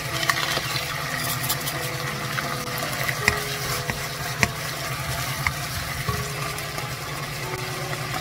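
Minced pork and green pepper sizzling in sauce in a nonstick wok while a wooden spoon stirs and scrapes, with a few sharp clicks of utensils against the pan, the loudest about three and four and a half seconds in.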